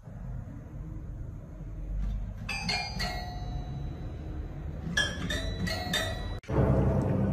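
Toy piano keys plinked by a cat's paw, giving bell-like notes. Three notes come about two and a half seconds in, then a quicker run of about five around five to six seconds in. Near the end the sound drops out for a moment and a louder, noisy stretch with music begins.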